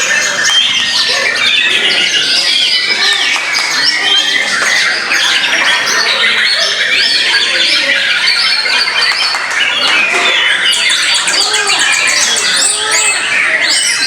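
Several caged white-rumped shamas singing at once, a dense, unbroken mix of overlapping whistles, chatters and calls, with a fast high rattling trill about eleven seconds in.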